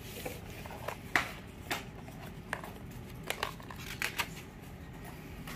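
Paper pages of a picture book being handled and turned: a string of short rustles and flicks, about nine in five seconds.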